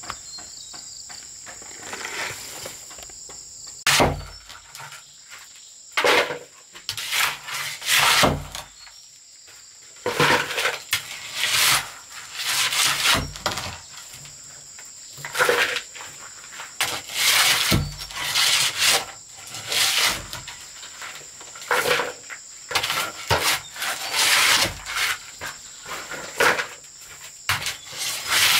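A long-handled shovel scraping and scooping loose soil across a dirt floor in repeated strokes, with a few sharper knocks of the blade. Insects drone steadily in the background.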